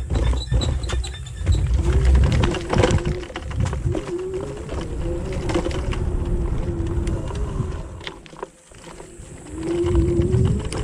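Kugoo Max Speed electric scooter being ridden over rough ground: the motor's whine wavers up and down with speed over wind rumble on the microphone, with small rattles and knocks over bumps. The whine drops away briefly about eight seconds in, then returns.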